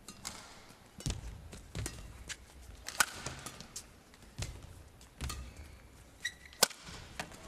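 Badminton rally: sharp cracks of rackets striking the shuttlecock every second or two, the loudest near the end, among dull thuds of players' feet on the court mat and a short shoe squeak.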